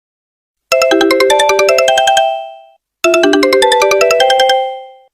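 Sony Ericsson mobile phone ringtone: a short, quick melody of pitched notes played twice, each time fading out at the end.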